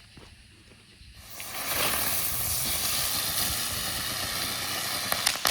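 Ground bloom firework spinning on the ground: a loud steady hissing rush starting about a second in, breaking into a quick string of crackles near the end.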